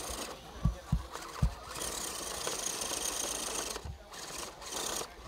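Electric 1/10-scale RC trail truck's motor and gears whining steadily for a couple of seconds as it climbs, preceded by a few low thumps.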